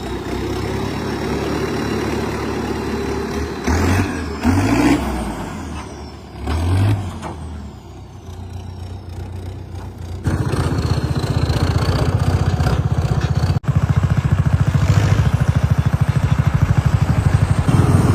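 Diesel tractor engine running, revved up briefly about three times in the first seven seconds. From about ten seconds in it is louder and close, with a fast, even chugging.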